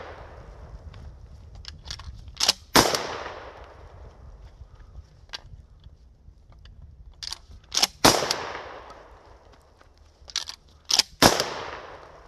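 Three pump-action shotgun shots, about five and then three seconds apart, each with a long echoing tail. Sharp clicks and clacks come just before each shot.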